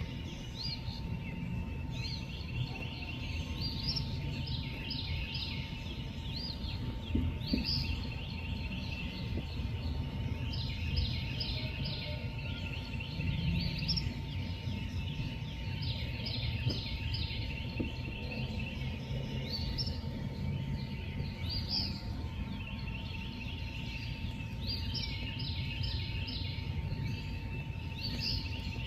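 Outdoor nature ambience: bursts of rapid, high chirping calls come and go every few seconds over a steady low rumble, with a thin steady tone held underneath.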